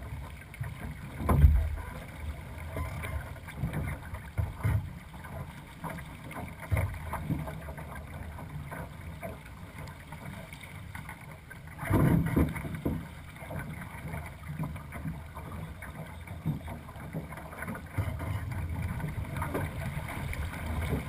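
Wind rumbling on the microphone of a camera mounted on a two-person sailing dinghy under way, with water rushing along the hull. Louder thumps stand out about a second and a half in and again around twelve seconds.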